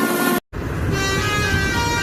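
Bus 'telolet basuri' multi-tone musical horn playing a tune in stepped notes. It breaks off suddenly about half a second in, and after a brief silence another horn tune starts over a low rumble.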